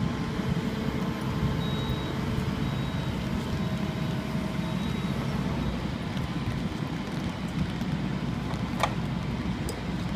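Diesel engine of a wheeled excavator running steadily at idle, a continuous low rumble.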